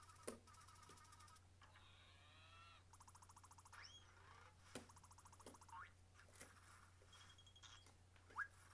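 Faint cartoon sound effects from the animated short's soundtrack: buzzing chirps, a warbling tone and a quick rising whistle, with a few sharp clicks.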